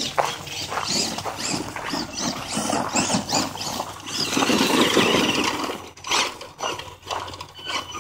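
Tamiya Blackfoot Xtreme RC monster truck driving over dirt and pine needles: its electric motor and gears whirring while the tyres scrabble and crunch over the ground, with a louder surge about five seconds in.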